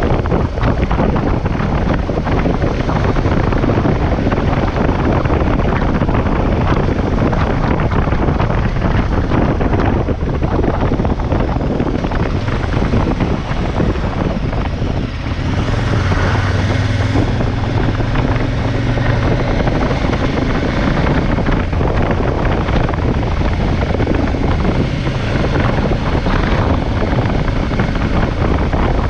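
KTM 1190 Adventure V-twin engine running at road speed under steady wind rush on the camera microphone. About halfway through, the wind noise eases for a few seconds and a steady low engine note comes through more clearly.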